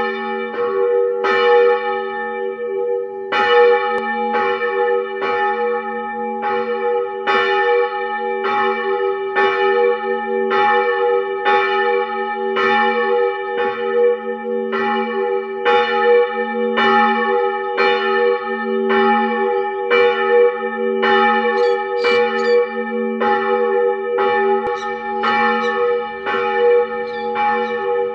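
Church bell ringing, struck in a steady rhythm about one and a half times a second, each stroke renewing a sustained ring; a short break in the strokes about three seconds in.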